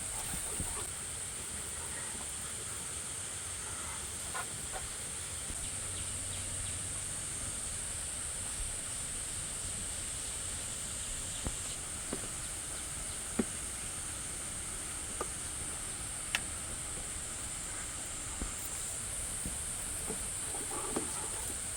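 Steady high-pitched hiss throughout, with scattered light clicks and knocks.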